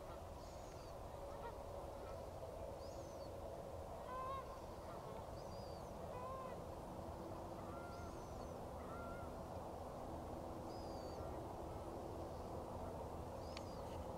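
Geese calling in flight: short honks repeating every second or two over a steady low background rumble.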